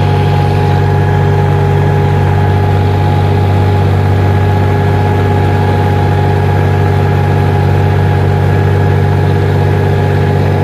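Tractor's diesel engine running at a steady speed, heard up close from the driver's seat: a loud, even hum that holds one pitch.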